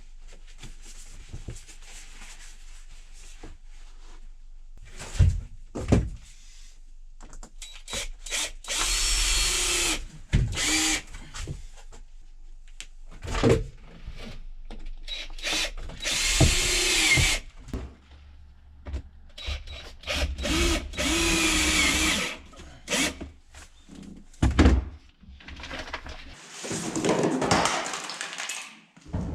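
Power drill running in several bursts of one to two seconds, its motor pitch shifting within each run, with knocks and thumps in between.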